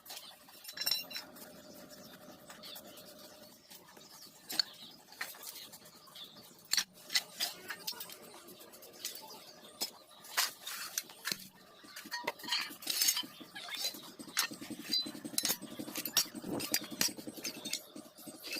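Irregular light metallic clinks and taps, scattered and unevenly spaced, with a buzzing rattle joining in for the last few seconds.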